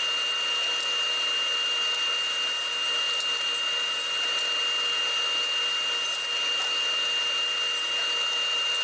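Steady whine and hiss of running woodshop machinery, the table saw and its dust collection, holding a constant high tone with no change in load.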